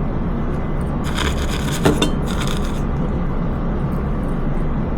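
Small hard parts and tools clinking and rattling on a desk for under two seconds, with a couple of sharper clicks, over a steady low hum.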